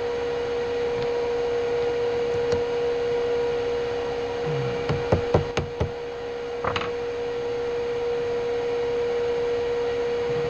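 Steady electrical or machine hum in a workshop, with a quick cluster of sharp knocks about five seconds in and one more a second later, like metal parts or tools being handled.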